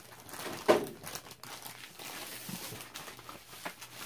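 Clear plastic sleeve crinkling and rustling as a rolled diamond-painting canvas is worked out of it by hand, with one louder crackle a little under a second in.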